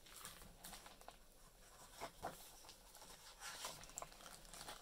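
Faint rustling and soft taps of a hardcover picture book's pages being turned and pressed flat by hand, as several brief paper sounds scattered through.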